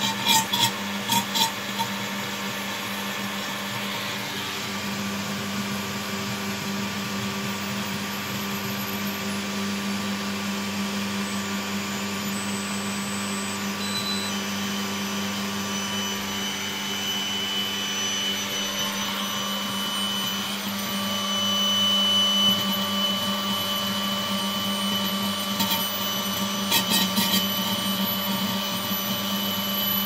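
Super NOVA apparatus running: the steady hum of its electric motor and fan, with a low drone and several higher whines held at one pitch. It grows a little louder about two-thirds of the way in. A few short clicks come at the start and again near the end.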